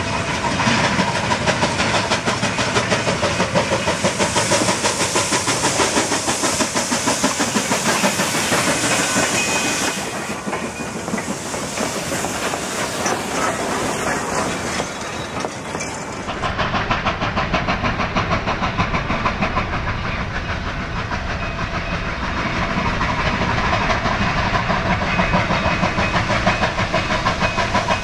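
Durango & Silverton narrow-gauge steam locomotives working hard as they pull a train away: a steady rhythm of exhaust chuffs with steam hiss. For a few seconds near the middle the beat fades while the cars roll past, then it comes back.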